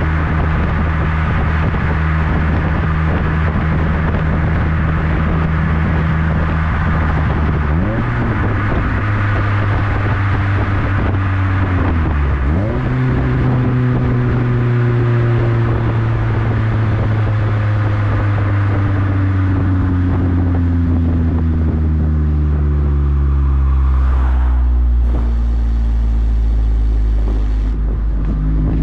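Exhaust of a 2010 Toyota Corolla XRS's 2.4-litre four-cylinder through a Borla aftermarket system, heard right at the tailpipe while driving: a loud, steady drone whose note breaks and changes briefly twice, about 8 and 12 seconds in. The pitch then falls slowly as the revs drop, settling into a deeper drone near the end, over wind and road noise.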